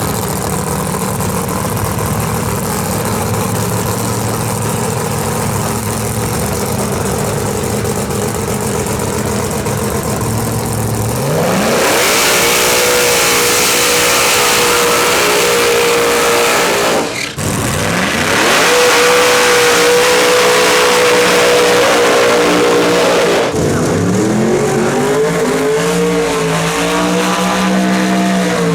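Pro Mod drag car engine running with a rough low rumble, then revving up and held at high revs. It cuts out abruptly for a moment, climbs and holds high again, and near the end the revs swing up and down.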